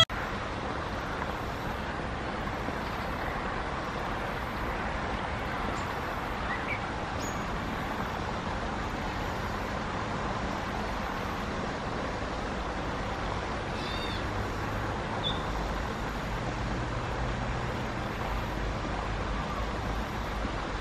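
Steady hum of distant road traffic, with a few faint, short gray catbird notes scattered through it. The clearest note comes about fourteen seconds in.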